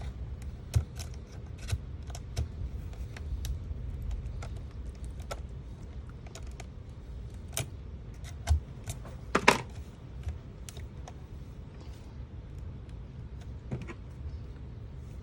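Irregular clicks and cracking of plastic clips as an HP laptop's screen bezel and LCD are pried apart with a metal tool, with a louder cluster of cracks about nine seconds in, over low bumps of handling.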